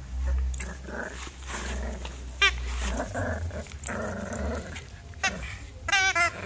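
Border terrier puppy growling in play while tugging at a rubber toy, with a few short high-pitched yips, two close together near the end.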